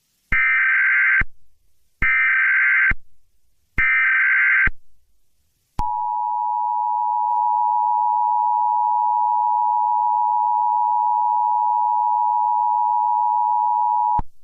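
Emergency Alert System SAME header: three short bursts of warbling digital data tones, each just under a second, followed by the EAS attention signal, a steady two-tone alarm (853 and 960 Hz) held for about eight seconds.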